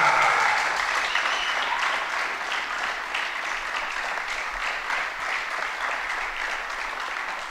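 Audience applauding: many hands clapping, slowly dying away.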